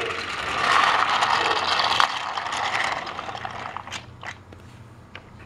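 Battery-powered Trackmaster toy train engine running along plastic track, its motor and wheels making a steady mechanical noise that dies away about three seconds in, followed by a few light clicks.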